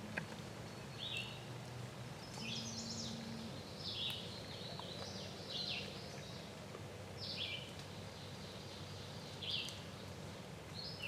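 Songbirds singing short, high phrases, one about every one to two seconds, over a faint steady low hum.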